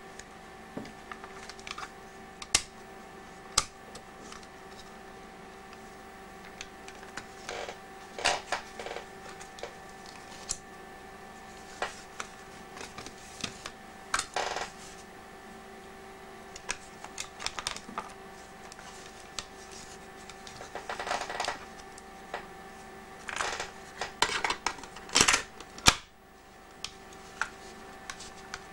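Scattered small clicks, taps and short rattles of plastic and metal parts as a screwdriver and hands work on a portable cassette player's circuit board and casing, busier in the last several seconds, over a faint steady hum.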